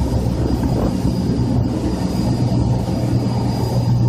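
Motorboat under way at speed: a steady engine drone mixed with the rush of water past the hull.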